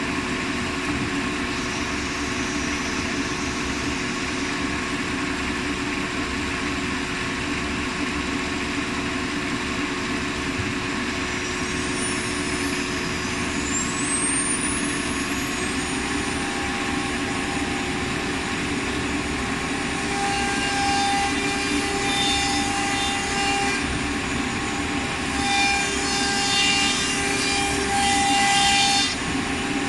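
CNC router with a 9 kW air-cooled HQD automatic-tool-change spindle: a steady machine hum, then a rising whine a little before halfway as the spindle spins up. Over the last ten seconds the router bit cuts into MDF in louder spells.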